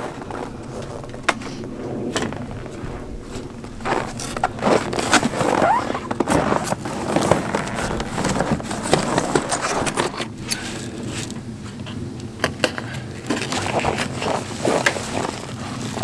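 A sheet of cardboard being handled and pressed against a wooden window frame: scraping and rustling, broken by many sharp knocks and clicks.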